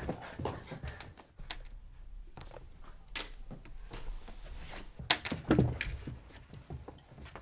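Irregular taps, knocks and clatter of students fidgeting at classroom desks and chairs, with a cluster of louder thumps about five to six seconds in.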